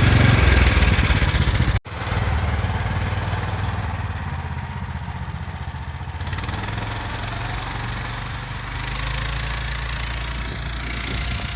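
Snowmobile engine running steadily, with a brief dropout about two seconds in where the recording cuts.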